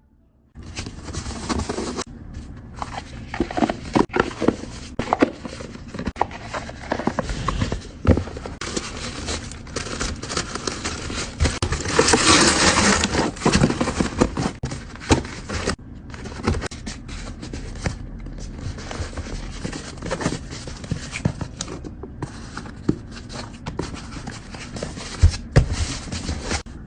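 Hands packing a small order: packaging rustling and crinkling, with frequent taps and clicks as items are handled. A louder, continuous stretch of noise lasts about a second and a half, about twelve seconds in.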